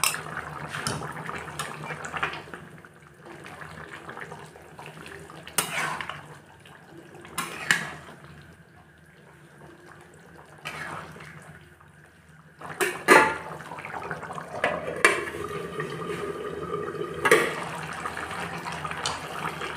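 Curry boiling in a wok, a steady bubbling hiss, with a few sharp clinks of a utensil against the pan; it goes quieter for a few seconds midway.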